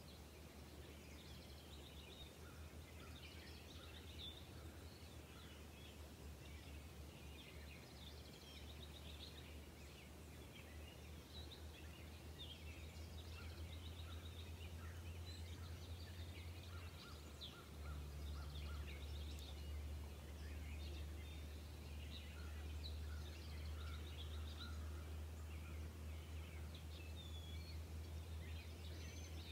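Outdoor ambience: small birds chirping faintly and irregularly over a steady low hum, which gets louder a little past halfway.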